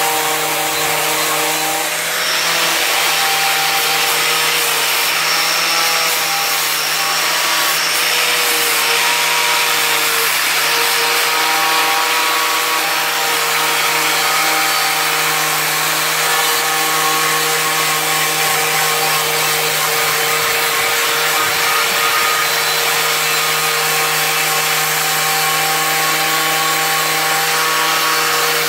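Corded angle grinder running steadily, its abrasive disc grinding paint off the sheet-steel of an old tool box. The motor's pitch wavers slightly as the disc is pressed against the metal.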